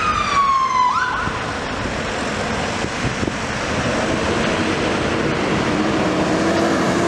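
Fire engine's wail siren sweeping down in pitch and cutting off about a second in with a short upward chirp, followed by the truck's engine and road noise as it comes closer.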